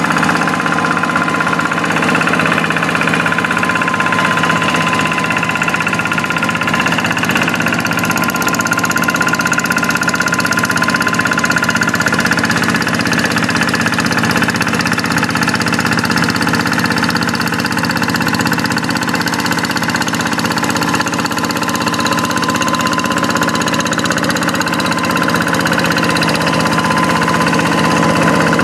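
Quick hand tractor's Kubota single-cylinder diesel engine running steadily while pulling a plough through a rice paddy.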